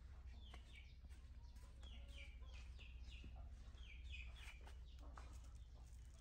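Faint bird chirps: short falling chirps in several quick runs over a low, steady hum.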